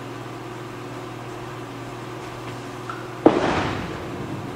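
A Storm Lightning Blackout bowling ball hits the pins about three seconds in: one sudden loud crash of pins scattering that dies away over about a second, after a steady hum.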